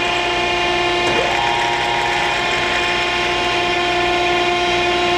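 Okamoto hydraulic surface grinder running, a steady machine hum of several tones from its motors. Between about one and two and a half seconds in, an extra higher tone joins as the wheelhead's rapid up-and-down feed runs briefly.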